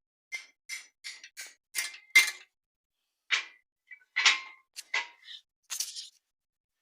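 About a dozen light, sharp metallic taps and clinks at irregular spacing, some with a short ring: metal workpieces being knocked or set against each other.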